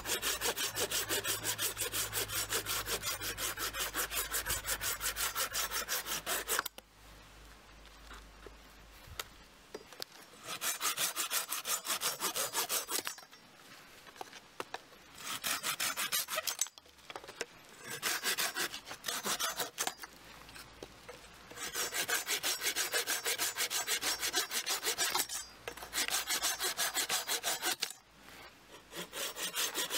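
Rico RC2250 pruning saw cutting through a green (not dry) walnut branch in quick back-and-forth strokes. It saws in several bouts of a few seconds each, with short pauses between cuts.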